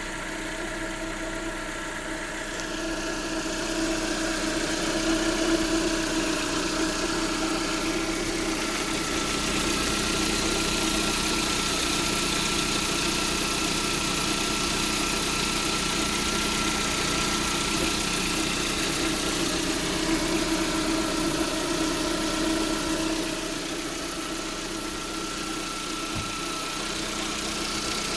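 Lada Priora's VAZ-21126 1.6-litre 16-valve petrol engine idling with a steady whistle, which the owner suspects comes from the alternator or one of its bearings. The sound grows louder a few seconds in and drops back near the end.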